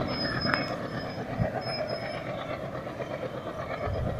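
Passenger train running along the track in the distance: a steady rumble of wheels on rails, with a faint high thin whine on and off in the first half.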